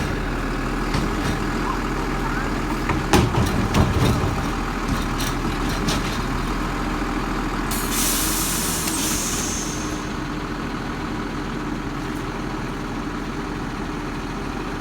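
Recycling truck's diesel engine idling steadily, with a few sharp knocks about three to four seconds in. From about eight seconds a loud hiss of air from the air brakes lasts about two seconds, then fades.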